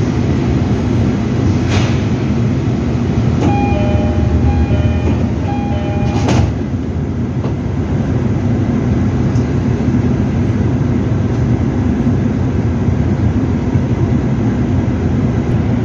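JR Freight container train rolling past on the next track with a steady low rumble. Between about three and a half and six seconds in there is a short run of electronic beeps, and there is a sharp knock about six seconds in.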